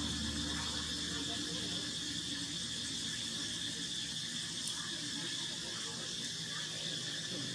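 Steady high-pitched drone of insects, an unbroken buzz with no animal calls over it.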